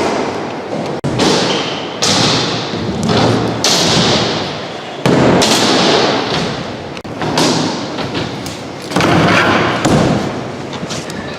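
A BMX bike being ridden: several thuds and hits, with rough rolling and scraping noise between them.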